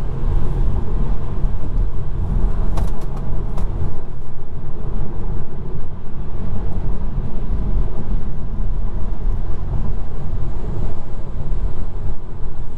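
Road and tyre noise inside a Tesla electric car's cabin at about 60 mph on the freeway: a steady low rumble. A few light clicks come about three seconds in.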